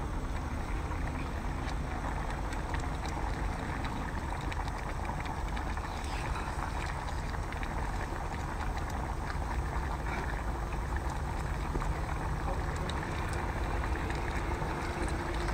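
Steady low rumbling background noise, with faint scattered clicks and crackles as a cooked crab is pulled apart and eaten by hand.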